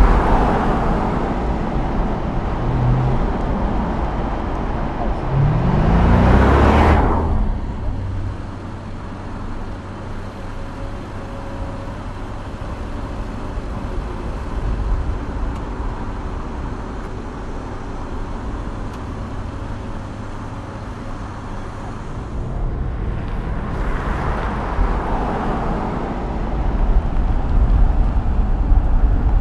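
Audi S8's twin-turbocharged V8 driving past with steady tyre and road noise. About six seconds in, the engine note rises in pitch as the car accelerates and is at its loudest, and the sound swells again near the end as the car comes closer.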